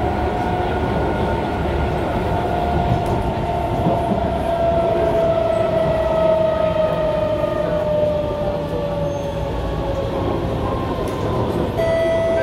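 SMRT Kawasaki C151 train heard from inside the carriage: the traction motors whine over the rumble of the wheels on the track, and the whine slowly falls in pitch as the train slows. Near the end a two-note chime sounds.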